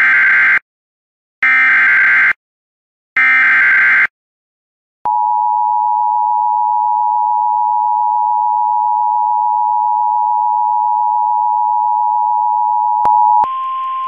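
Emergency Alert System tones: three harsh, buzzing one-second bursts of the SAME digital header data, followed by the two-tone EAS attention signal, a steady dual-pitched tone held for about eight seconds. Near the end it switches to a single, slightly higher steady tone.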